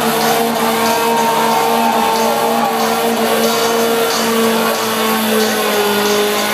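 Acura Integra's four-cylinder engine held at high, steady revs during a tyre-smoking burnout. The engine note dips slightly near the end.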